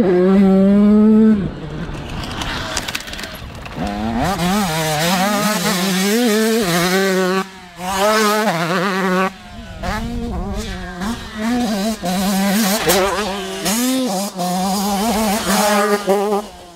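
A Husqvarna TC85 two-stroke 85cc motocross bike ridden hard, its engine pitch rising and falling with the throttle. The throttle is chopped briefly a couple of times midway, and the sound drops away at the very end.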